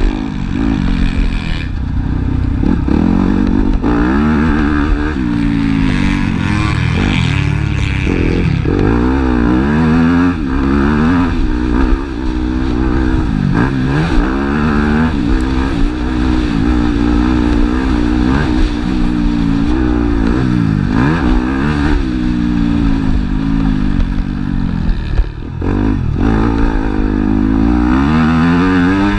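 Motocross bike engine heard from on board, revving up and dropping back over and over as the rider accelerates, shifts and shuts off along the dirt track.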